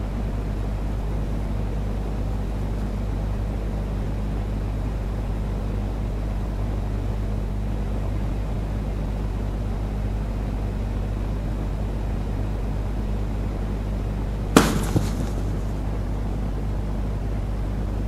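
A steady low hum, broken once about fourteen and a half seconds in by a single sharp pop, with a fainter click just after it.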